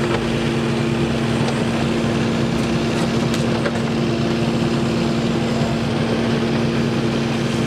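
Toy claw excavator running, giving a steady engine-like drone with a constant hum and a few faint clicks.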